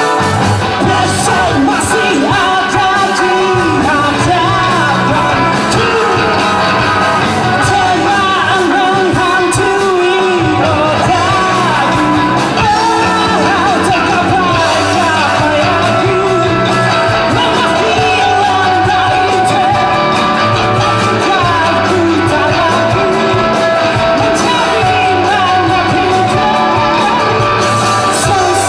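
Live rock band performing: a singer over guitars, bass and drums, loud and steady throughout.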